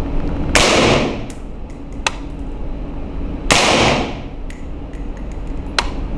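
Two suppressed 5.56 shots from an AR-15 fitted with an Alpha Hurricane 223 flow-through suppressor, about three seconds apart, each with a short echoing tail off the concrete walls of an indoor range. Each shot reads about 87 dB on the meter.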